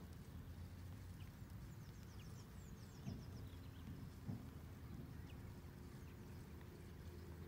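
Faint outdoor pond-side ambience: a low steady hum with small birds chirping faintly now and then, mostly in the first half. Two soft knocks come about three and four seconds in.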